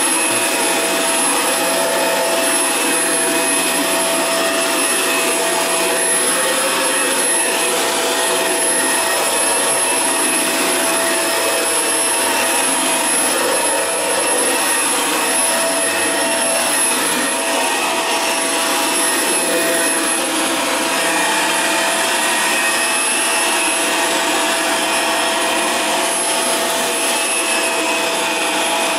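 Dyson DC24 upright vacuum cleaner running steadily while vacuuming carpet: an even rush of air with a steady motor whine that holds its pitch.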